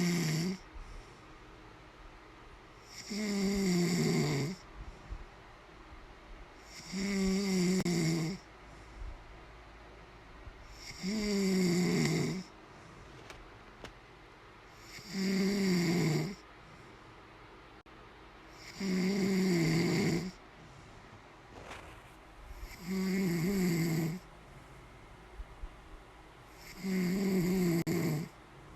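A man snoring in his sleep: a long, pitched snore about every four seconds, eight in all, with quiet between them.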